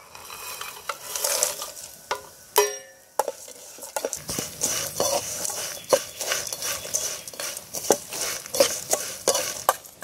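Whole spices (dried red chillies, cinnamon, coriander seeds) rattling into a hot aluminium kadai and being stirred with a metal slotted spoon to roast them, with repeated scraping clinks of the spoon on the pan. A single ringing metal clang comes about two and a half seconds in.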